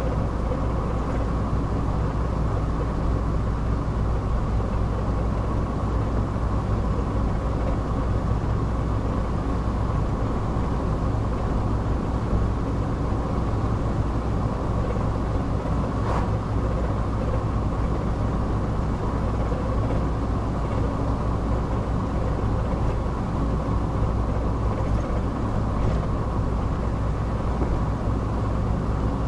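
Steady drone of a car cruising at an even speed, heard from inside the cabin: engine and tyre road noise that holds level throughout, with one faint tick about halfway through.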